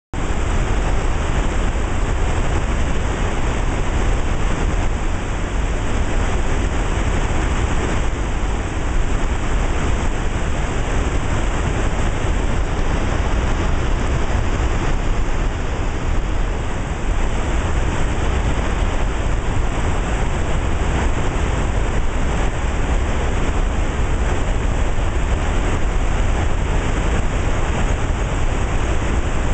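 Steady rushing water from a power dam's outflow on a creek, a loud, unbroken roar with a heavy low rumble.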